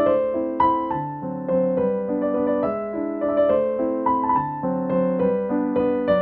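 Background music: a gentle piano melody played over chords.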